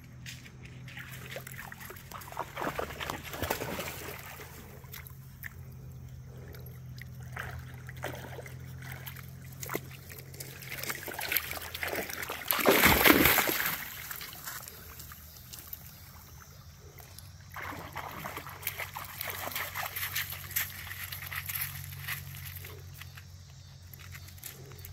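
A dog wading in a shallow creek, with water sloshing and trickling around its legs. About halfway through there is one loud splash lasting a second or two.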